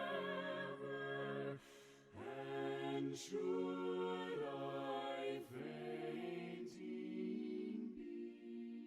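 Voices singing a slow hymn a cappella, in sustained phrases with short breaks between them.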